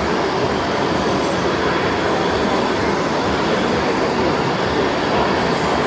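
A steady, even rumbling noise with no separate knocks, tones or voices standing out.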